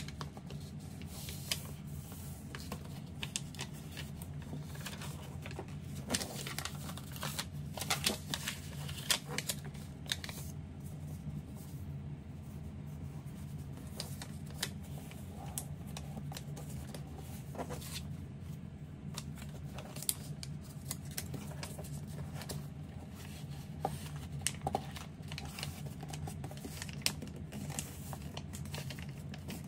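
A sheet of origami paper being handled and folded: scattered crinkles and creasing clicks over a steady low hum.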